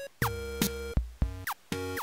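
Background music: a steady beat with pitched electronic notes and short falling slides.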